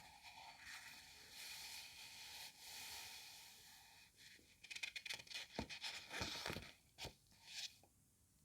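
Paper pages of an old book being leafed through close to the microphone. First comes a soft, steady sliding rustle, then about halfway through a quick run of crisp paper crackles and flicks.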